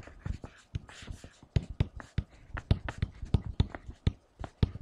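Stylus tapping and scratching on a tablet screen while handwriting numbers and letters: a quick, irregular run of sharp clicks.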